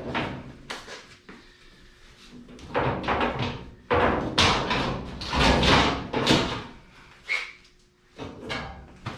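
Irregular clunks, knocks and scrapes of a truck's front header panel and grille being pushed and worked into place, several hard knocks in a row about halfway through.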